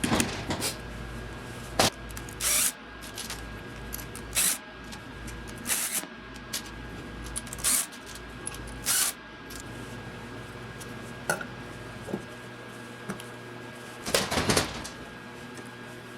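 Metal clinks and short scraping clatters of tools and engine parts being handled while the engine's small valve covers are fitted. The clatters come every second or two, with a cluster near the end, over a steady low hum.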